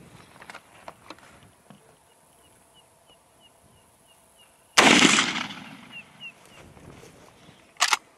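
A single rifle shot about five seconds in, fading out over about a second, followed near the end by sharp metallic clicks as the rifle's action is worked. A row of faint high chirps, about three a second, runs underneath, with a few light handling clicks at the start.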